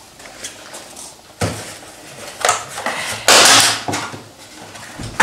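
Dishes and plastic containers being handled on a kitchen table: a few short knocks and clatters, with a louder scraping rustle of plastic a little over three seconds in as eggs are taken from a plastic egg tray.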